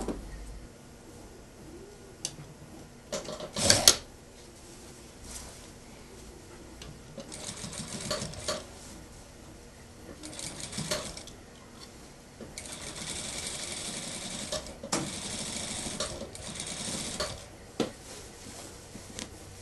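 Industrial sewing machine stitching in short runs: two brief bursts, then a longer run of about five seconds from roughly twelve and a half seconds in. A loud knock and clatter from handling comes about four seconds in.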